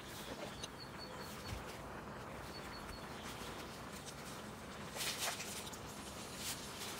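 A few short, high bird chirps, then a brief rustle and clatter about five seconds in as dry miswa noodles are tipped from a black plastic tray into a pan of soup.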